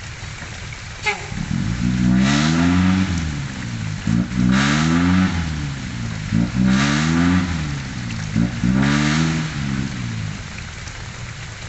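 Six-wheel dump truck's diesel engine revved hard four times in a row, each rev climbing and then dropping back, with a hiss at each peak.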